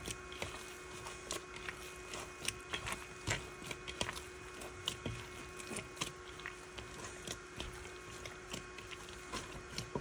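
Risen bread dough being kneaded by hand in a mixing bowl after being punched down: soft squishing and irregular light knocks and clicks as the fist presses into the dough and the bowl shifts, over a faint steady hum.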